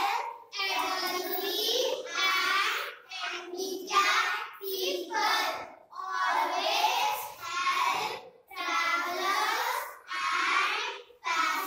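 A group of young children singing together in unison without instruments, in short phrases with brief pauses between them.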